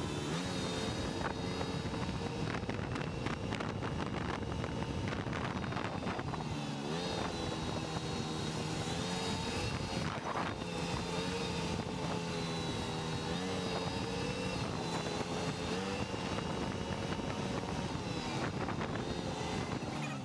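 Small tractor-type utility vehicle's engine running as it drives along, its pitch rising about a third of the way in and then dipping and rising a few times with speed.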